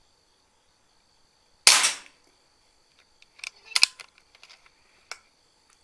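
PCP air rifle firing a single sharp shot, followed a couple of seconds later by a few lighter clicks and knocks. Crickets chirp steadily and faintly in the background.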